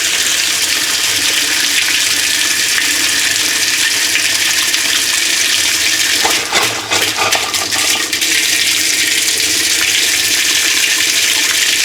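Water rushing into the tub of a 1993 Kenmore 80 Series top-load washer at the start of a fill, a steady loud hiss and splash, briefly unsteady about seven seconds in.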